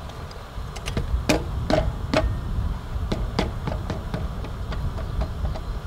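Hard knocks and clicks as a 6x6 cedar post is worked into its post bracket: three louder knocks a second or two in, then a run of lighter ticks and taps.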